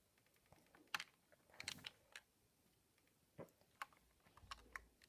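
Fingers picking rubber loom bands out of a clear plastic compartment tray: a handful of faint, irregular clicks and taps.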